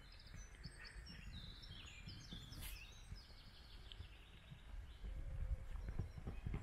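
Small birds chirping and singing in short, high calls, busiest in the first half, over a low rumble that grows louder near the end.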